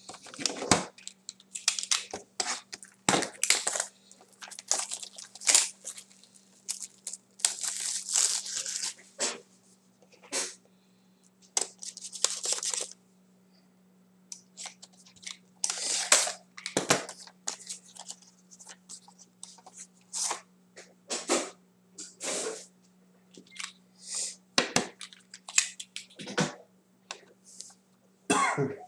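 Packaging of a sealed box of hockey cards being torn open and handled: irregular rips, crinkles and rustles of wrapper and cardboard, some lasting about a second, over a faint steady hum.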